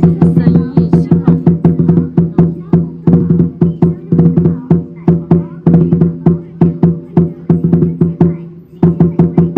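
Chinese lion dance drum beaten in fast rhythmic strokes, about five a second, in phrases broken by brief pauses, over a steady ringing low tone.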